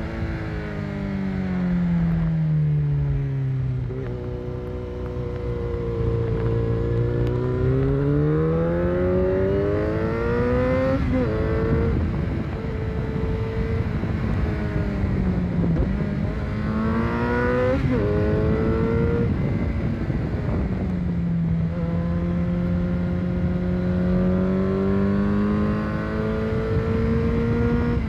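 Motorcycle engine heard from on board: its pitch falls as it slows, holds low, then rises under acceleration with sharp drops at gear changes about eleven seconds in and twice around seventeen to eighteen seconds, before settling into a steadier, slowly rising drone toward the end. A steady rushing noise runs underneath.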